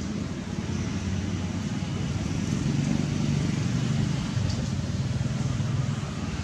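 A motor vehicle's engine running, with a steady low hum that swells in the middle and eases off again.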